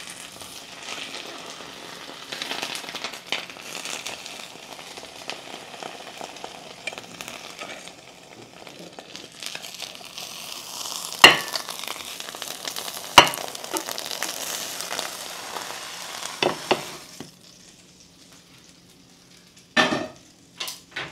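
Eggs frying in a pan, a steady sizzle. Two sharp knocks come a little past the middle. The sizzle dies away a few seconds before the end, followed by a few short clatters.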